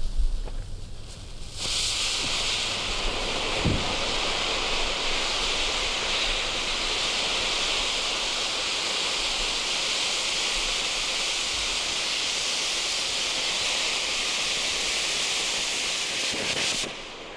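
Cone-shaped firework fountain spraying sparks with a steady, even hiss that starts suddenly about one and a half seconds in and cuts off sharply near the end as the fountain burns out.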